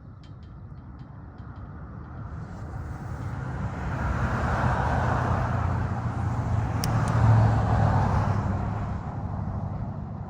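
A road vehicle passing by: engine and tyre noise grows louder over a few seconds, is loudest about halfway through, then fades away.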